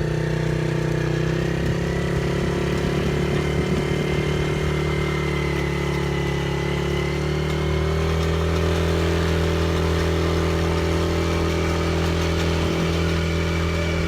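Four-wheeler (ATV) engine running at a steady, unchanging speed, a little louder from about halfway through.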